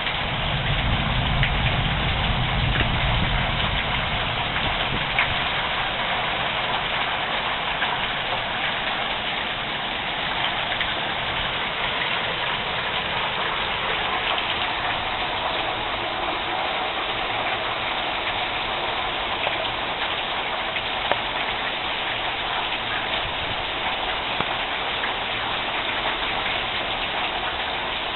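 Heavy rain pouring down steadily, a dense even hiss with a low rumble in the first few seconds.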